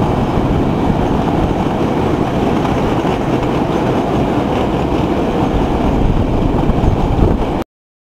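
DJ class diesel-electric locomotive hauling a passenger train past, a steady rumble of engine and running gear. It cuts off suddenly near the end.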